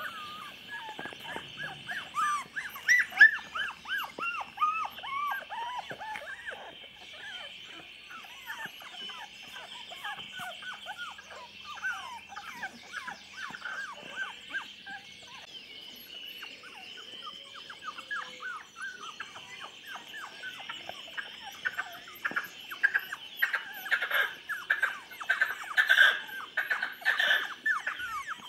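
Young chocolate Labrador puppies, about three and a half weeks old, whimpering and squeaking: many short, high squeals overlap, busiest near the start and again toward the end.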